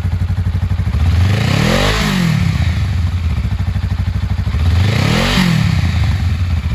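Honda Rebel 500's parallel-twin engine idling with an even pulse, revved twice: the pitch rises and falls about two seconds in and again about five seconds in.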